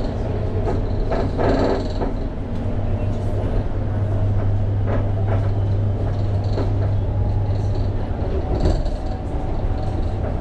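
London Overground Class 710 electric train heard from inside the carriage while running between stations: a steady low hum from the wheels and running gear, with scattered clicks and rattles.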